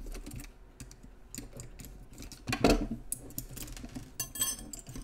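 Small metallic clicks and rattles of a nut driver and loose parts as the nuts holding the motor on a Copal 227 flip clock movement are taken off and the motor bracket is pulled free. A louder knock comes a little past halfway, and light metal clinks follow near the end.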